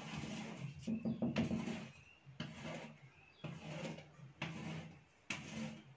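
Chalk scraping on a blackboard as lines are drawn down it: about six separate strokes, each under a second long, with short pauses between.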